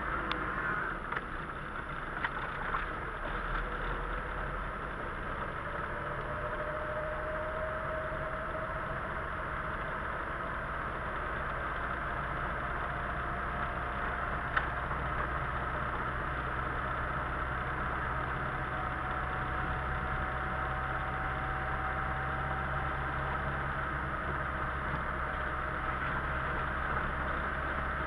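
Car engine running and tyres on a wet road, heard from inside the cabin while driving, the engine note slowly rising in the first part. A single sharp click about halfway through.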